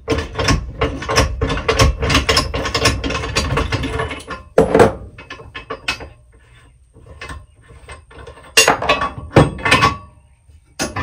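Socket ratchet wrench clicking rapidly as a bolt is backed out of a lawn tractor quick hitch, for about the first four seconds, then a metal clunk and scattered clicks, with another short run of ratcheting near the end.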